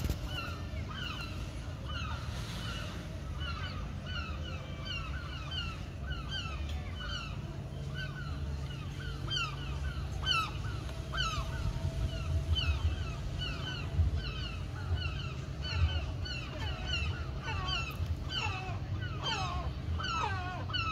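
Many seagulls calling over and over, short falling cries overlapping one another, louder in the middle and later part: the gulls are agitated by a drone flying among them.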